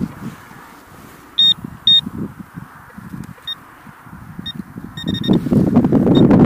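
Metal-detecting pinpointer giving short high beeps at irregular intervals as it is probed in a dug hole, signalling a metal target in the soil. Gloved hands scrape and crumble loose dirt underneath, loudest near the end.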